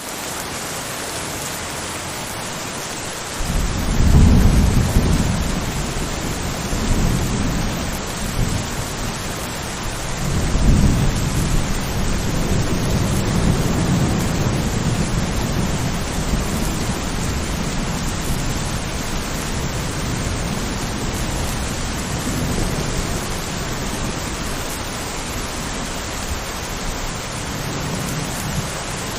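Steady rain hissing, with rolling thunder that rumbles in about three seconds in, swells twice (around four and eleven seconds in), then keeps rumbling more softly under the rain.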